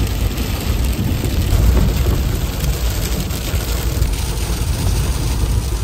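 Rain pelting the windshield and roof of a truck driving a gravel road, over a loud, steady low rumble of the vehicle and road.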